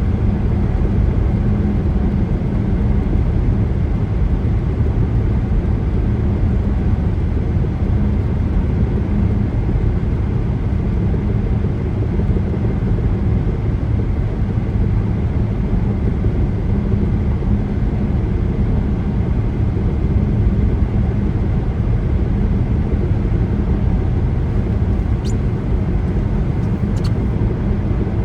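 A car driving at steady highway speed, its tyre and road noise running evenly with a low drone, with two faint ticks near the end.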